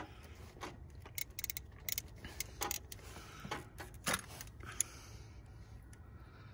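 Ratchet and socket clicking and clinking on a bolt in an engine bay: a run of sharp, irregular metallic clicks, thickest between about one and five seconds in.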